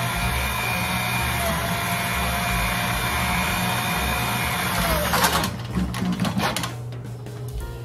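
A small electric motor, such as a power tool, running steadily with a faint whine, then winding down about five seconds in. A few metal clinks and knocks follow.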